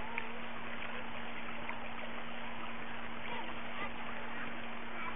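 Steady rush of a shallow river flowing over stones and gravel, under a constant low hum.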